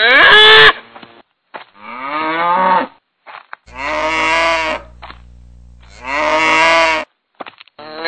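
Cows mooing, four long moos one after another with short pauses between them.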